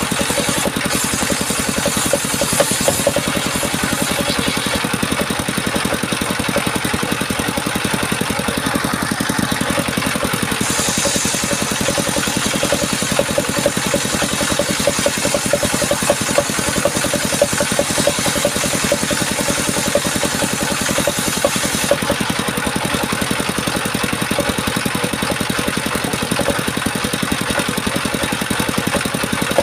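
Power saw running steadily, a fast, even pulsing motor note with no pauses.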